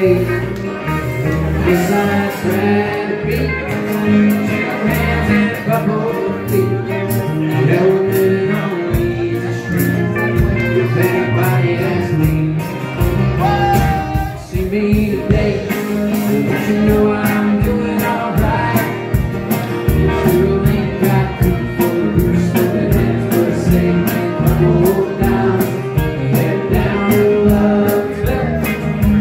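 Live band playing: drum kit keeping a steady beat under acoustic guitar and fiddle, with a man singing.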